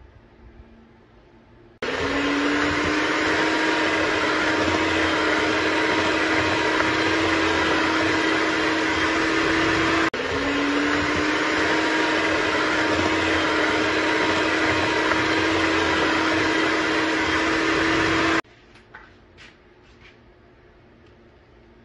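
Electric hand mixer beating cheesecake batter of eggs, cream cheese and cornflour in a steel bowl. Its steady motor whine starts about two seconds in, rising slightly in pitch as it gets up to speed. It stops abruptly about halfway, starts again the same way, and stops a few seconds before the end.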